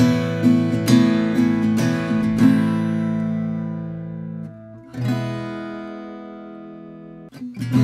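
aNueNue M Color MC-10 travel-size acoustic guitar being strummed. After a couple of seconds of steady strokes, a chord is left to ring and fade, one more chord rings out slowly, and the strumming picks up again near the end.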